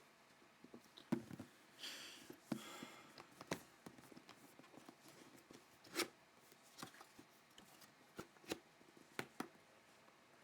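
Faint hand-handling of a camera box and its packaging: scattered light clicks and taps, with a soft rustle about two seconds in.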